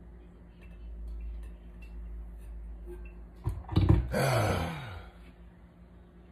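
Thick green smoothie poured from a blender jar into a glass, with light clicks of handling. About halfway through, a louder sound lasting about a second and a half, with a pitch that falls.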